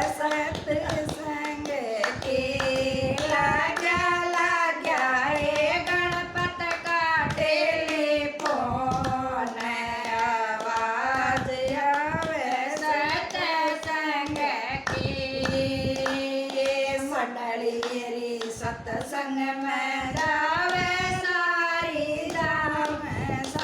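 A devotional bhajan sung by a solo voice with steady hand-clapping keeping time.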